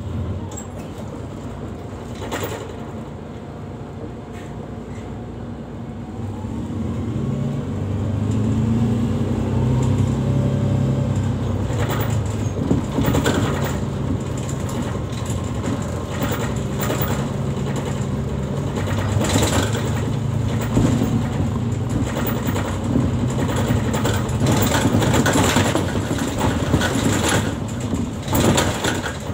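Mercedes-Benz city bus heard from inside near the front. Its engine runs quietly at first, then grows louder and rises in pitch from about seven seconds in as the bus pulls away. Through the second half the interior rattles and knocks as the bus rolls over rough, cobbled road and tram tracks.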